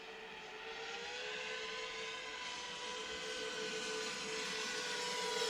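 An 8-inch FPV quadcopter's four motors and propellers whining at a nearly steady pitch that wavers slightly, slowly growing louder.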